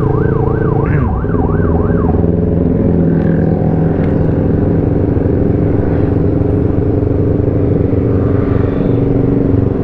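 Sport motorcycle engine running steadily at low road speed, heard from the rider's seat. For the first two seconds a siren yelps over it in a fast up-and-down wail, about two to three sweeps a second, then cuts off.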